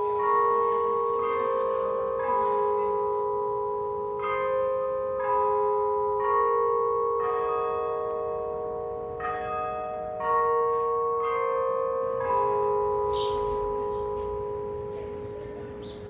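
Old Main tower bells chiming a tune, about one note a second in groups of four with a short pause between groups, each note ringing on under the next and dying away near the end.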